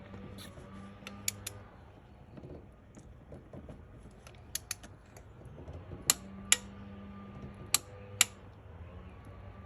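Click-type torque wrench on a spark plug socket: sharp metallic clicks, mostly in close pairs, as the plug is tightened to 15 ft-lb and the wrench clicks at its set torque. A steady low hum runs underneath.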